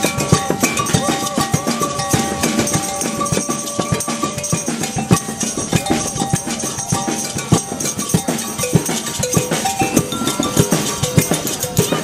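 Protest drum circle: drums and cowbells struck in a dense, continuous rhythm, with crowd voices underneath.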